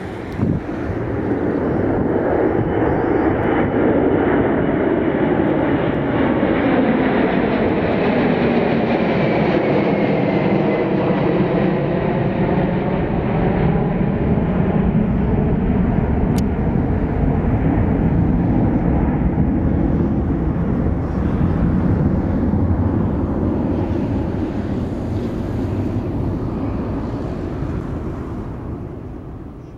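A Boeing 747-400's four jet engines at climb power just after takeoff, passing overhead and flying away. A loud, steady jet noise carries a faint whine that drops in pitch as the airliner passes, then fades out over the last few seconds.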